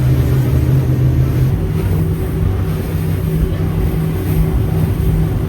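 An engine running steadily, its low hum stepping up in pitch about a second and a half in.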